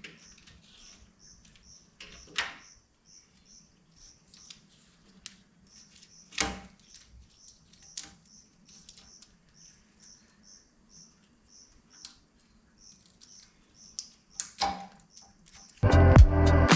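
A razor-blade scraper scraping a vinyl sticker off a metal door in a few separate strokes, the strongest about halfway through. A high chirp repeats steadily about twice a second throughout, and music starts loudly near the end.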